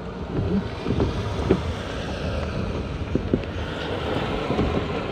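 A vehicle driving along a road, heard from inside the cabin: steady engine and road rumble with wind noise and a few light knocks.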